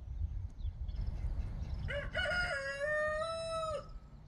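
A rooster crowing once, starting about two seconds in, its call ending in a long steady note of nearly two seconds.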